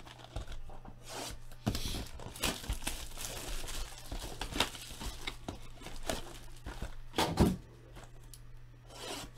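Plastic shrink wrap being slit and torn off a sealed 2016 Bowman Chrome trading card box, crinkling and tearing in irregular short bursts, with a few dull knocks as the cardboard box is handled.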